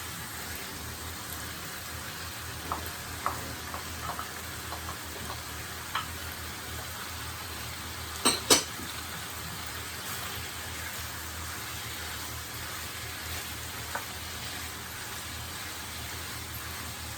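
Chicken and peppers frying in a pan with a steady sizzle, while a utensil stirs and knocks against the pan a few times; the two loudest knocks come about eight seconds in.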